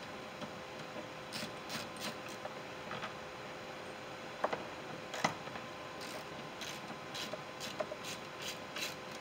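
Faint, scattered clicks and light scraping of a hand-held 6 mm nut driver turning out screws in a 2005 Ford F-150's inner door, over a faint steady hum.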